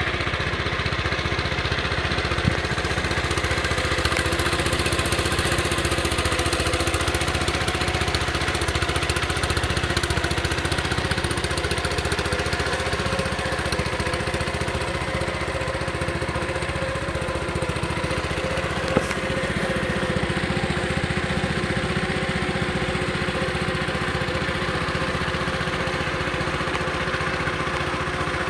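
Case 1816 skid steer's engine running at a steady speed, with two brief sharp clicks.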